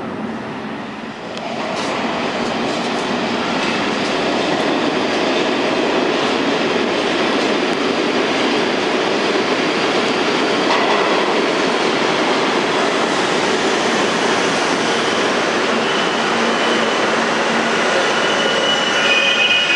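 R32 subway train pulling into the station: steel wheels rumbling on the rails, building over the first couple of seconds, then holding steady. High brake and wheel squeal comes in over the last few seconds as it slows along the platform.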